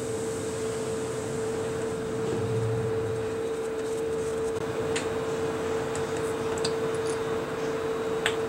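Steady mechanical hum with one constant tone over low noise, and a few faint light clicks about five, six and a half and eight seconds in.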